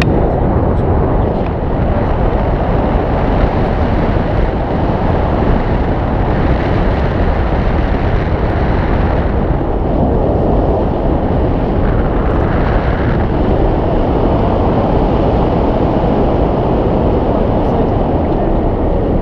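Wind rushing over an action camera's microphone in tandem paraglider flight: a loud, even buffeting noise with no engine tone.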